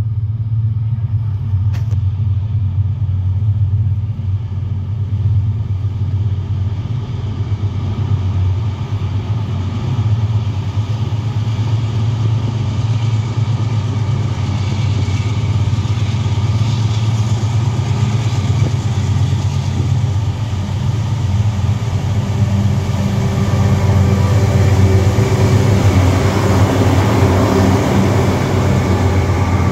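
A pair of GE AC44i diesel-electric locomotives hauling a loaded iron-ore train out of a tunnel: a loud, steady, deep engine drone that grows louder and brighter over the last few seconds as they come alongside.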